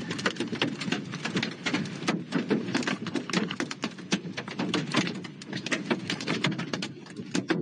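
Hail and heavy rain pelting a car's roof and glass: a dense, irregular clatter of sharp hits over a steady rushing noise.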